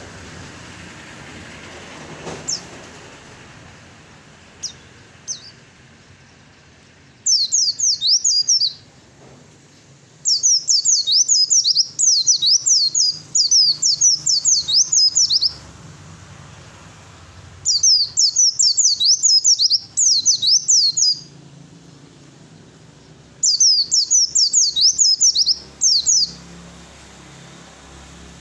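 A white-eye (pleci) singing a fast 'fighter' song: four bouts of rapid, sharp, high descending notes, each a few seconds long, separated by short pauses.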